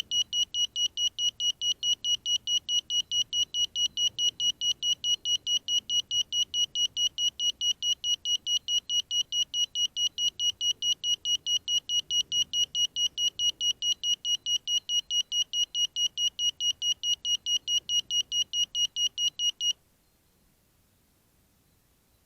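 Crashed FPV racing quadcopter's lost-model buzzer beeping at one high pitch, about four or five short beeps a second, the alarm set off to help find the downed quad. It cuts off suddenly near the end.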